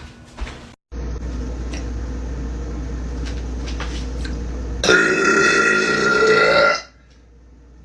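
A woman's long, loud burp, lasting about two seconds and coming about five seconds in. Before it there are a few seconds of steady background noise with a low hum.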